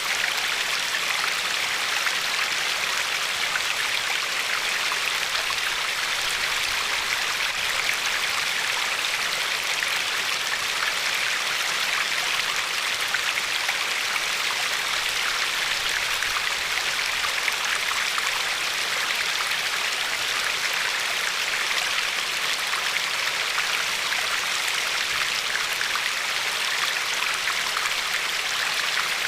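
A glacier-fed river flowing steadily over a pebbly shore: an even rush of water with fine splashing and trickling and no breaks.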